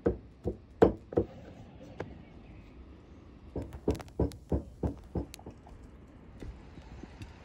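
Meat cleaver chopping raw lamb on a wooden chopping stump: a few heavy chops in the first second or so, then a quicker run of about six more around the middle.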